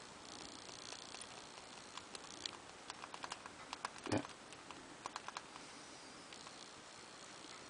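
Faint, scattered small clicks and ticks of a lock pick working the pins inside an old Master Lock No. 15 padlock, bunched in the middle, with one louder knock about four seconds in.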